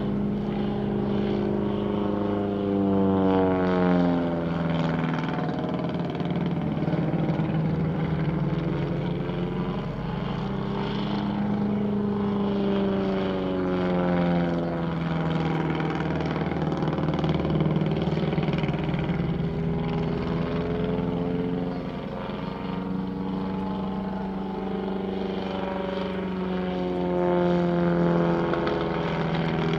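Piston engines and propellers of a Fokker D.VII and a Royal Aircraft Factory S.E.5a flying overhead. The two engine notes overlap, each sweeping up and down in pitch again and again as the biplanes wheel and pass.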